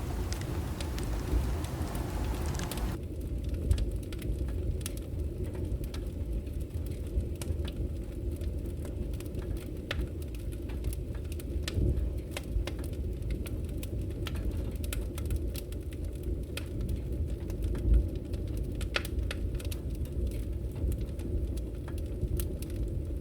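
A bonfire burning: wood crackling and popping in irregular snaps over a steady low rumble, with one louder pop about eighteen seconds in.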